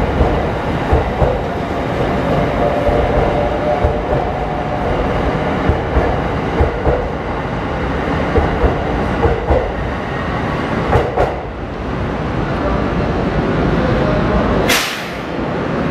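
Sunrise Izumo sleeper train, a 285 series electric multiple unit, rolling out past the platform: a steady rumble with the wheels clacking repeatedly over rail joints. A brief sharp hiss comes near the end.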